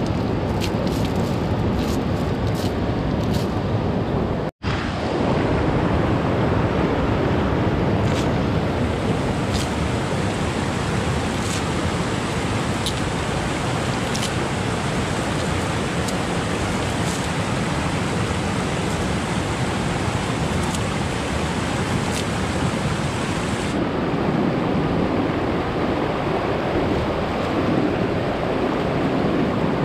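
Steady rush of river water running over a stony bed, with a few faint clicks and rustles in the first seconds. The sound drops out for an instant about four and a half seconds in.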